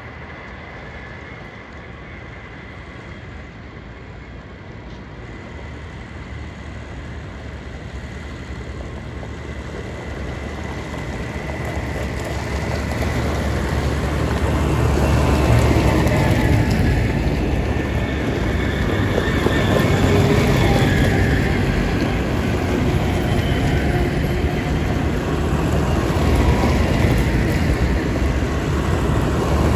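A convoy of articulated dump trucks driving along a gravel track: the diesel engines and tyres rumble, growing steadily louder over the first half as the trucks approach, then stay loud as the lead truck draws close.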